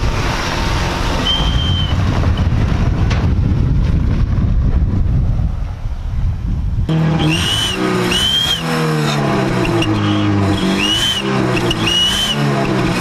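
Chevrolet Aveo sedan's engine running through an exhaust fitted with an aluminium turbo-whistle insert, which makes a turbo-like whistle. A steady engine rumble with one short whistle about a second in, then from about seven seconds in the engine is revved in repeated blips, each rise and fall bringing a rising-then-falling whistle from the exhaust.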